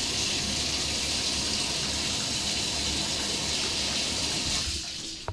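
Water running in a steady, even rush that tapers off and stops shortly before the end.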